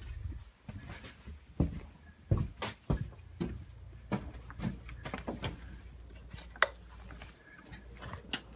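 Irregular knocks and clatters of objects being handled, over a low steady hum.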